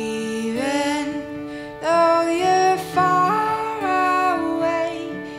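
Background song: a singing voice holding long notes that step and glide in pitch.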